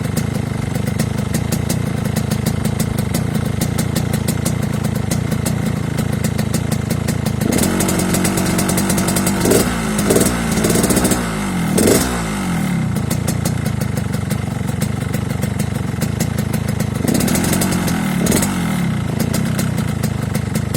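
Yamaha RX-King's 135cc two-stroke single-cylinder engine idling through an aftermarket exhaust with the growling "ngorok" note, its stock air filter cut short. The throttle is blipped several times in quick succession about halfway through and once or twice more near the end, each time falling back to a steady idle.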